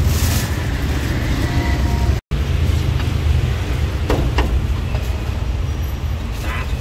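Steady low rumble of street traffic, with the sound dropping out for an instant about two seconds in. About four seconds in, two sharp chops of a cleaver on a thick wooden chopping board.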